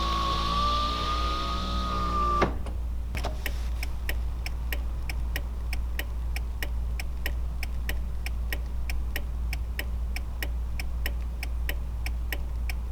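1987 Honda Prelude's power window motor whining steadily, stopping with a clunk about two and a half seconds in. Then the flasher relay ticks evenly, about three clicks a second, over a low steady hum.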